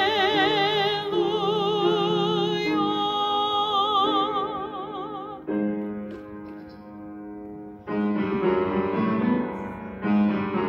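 A woman sings held notes with a wide vibrato for the first five seconds or so, then stops, and piano chords are struck three times, each left to ring and fade.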